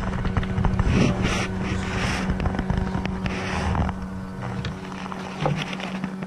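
A boat motor running with a steady hum, under scattered knocks and rustles of fishing rods and a spinning reel being handled.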